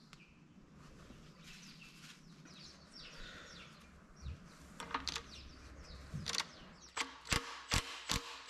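Faint high chirps, then a run of sharp metal clicks and knocks as a cordless impact driver and socket are handled and set against a cast-iron engine block, the last three about half a second apart.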